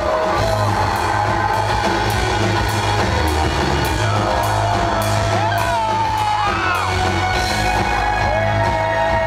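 Industrial band playing live through a loud PA, heard from the audience in a large hall: heavy, steady bass, a regular beat and a wavering pitched line above it.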